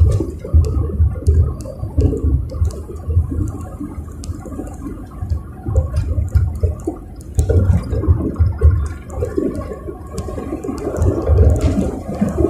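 Car driving on a rough road, heard from inside the cabin: an uneven low rumble of road and wind noise that swells and fades every second or so, with scattered light clicks and rattles.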